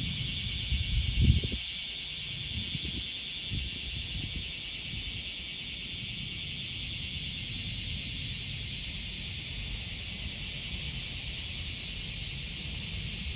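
Japanese cicadas singing in a loud, steady, high-pitched chorus with a fine rapid pulse. A low rumble on the microphone comes about a second in, with a few weaker ones after it.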